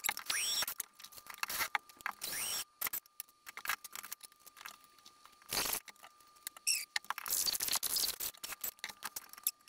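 Clicks, knocks and short squeaks from a trolling motor mount and its metal bolts being handled and positioned on a boat's bow.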